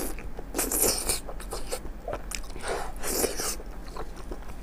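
Close-miked wet eating sounds: soft sheep brain in chili sauce being chewed and sucked. There are two longer bursts of squelching, about half a second in and about three seconds in, between small clicks of the mouth.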